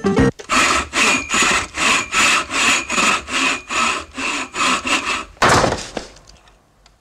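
Hand tool scraping back and forth on the parts of a small Honda outboard motor being repaired: about a dozen even strokes, roughly two a second, ending with one longer, louder stroke that fades away.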